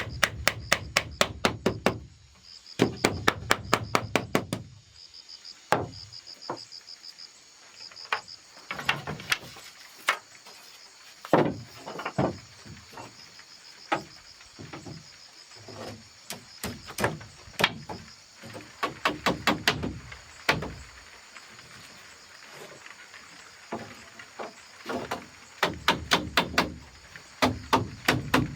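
Chopping strikes on a hard surface, coming in quick runs of about five a second with pauses and scattered single knocks between. Insects chirp steadily throughout.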